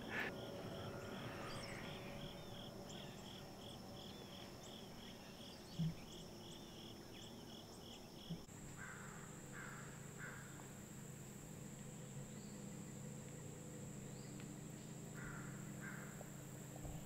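Faint chorus of crickets and other insects calling steadily, with a repeated chirp about twice a second in the first half; the steady high drone changes pitch abruptly about eight seconds in. Two soft knocks come a few seconds apart.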